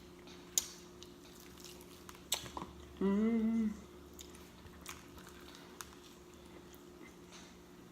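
Close-up mouth sounds of eating: sharp wet smacking and chewing clicks, and one short, steady voiced sound lasting under a second about three seconds in.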